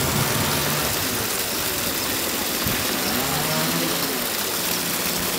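Steady rushing outdoor background noise with a low hum, and faint distant voices about three seconds in.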